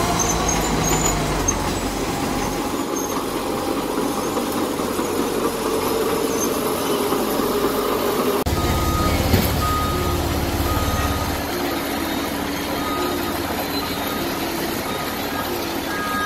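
Diesel engines of tracked sideboom machines running under load with a steady rumble. About halfway through, a backup alarm starts beeping in a steady repeated pattern, with a single knock just after.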